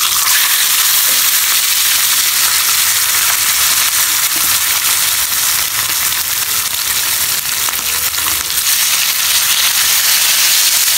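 Talakitok (trevally) frying in hot oil in a nonstick pan: a steady, loud sizzle with fine crackling, growing a little louder near the end.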